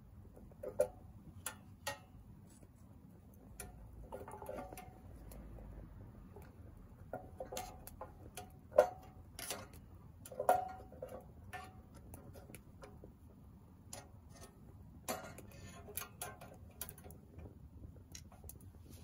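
Firewood crackling and popping in a small Soomloom MECA wood stove, with irregular sharp clicks, the loudest a little under halfway through. There are a few duller wooden knocks as sticks are handled and fed into the firebox.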